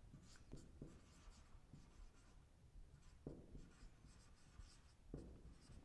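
Marker writing on a whiteboard: faint squeaky strokes, with a few light taps.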